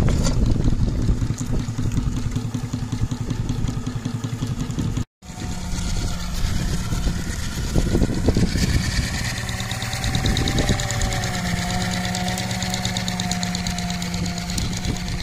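Scale-model Case steam traction engine running, with a fast, even mechanical beat. The sound breaks off for an instant about five seconds in and then runs on more steadily, with a faint held whine.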